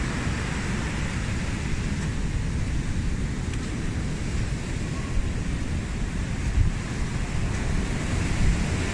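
Ocean surf breaking and washing up on a sandy beach, a steady rushing noise, with wind buffeting the microphone.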